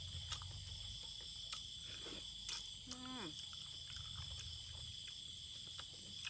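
Steady chorus of crickets and other night insects: several high, even trilling tones held throughout. Over it come a few faint clicks and one short, falling vocal sound about three seconds in.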